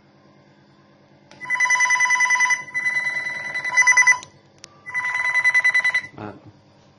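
Video intercom ringing for an incoming call from the outdoor door station: a rapidly trilling electronic ring in three bursts of about a second each.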